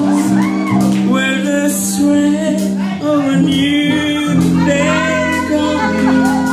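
Live rock band playing: the drummer sings into a microphone over his drums and cymbals, with bass guitar underneath.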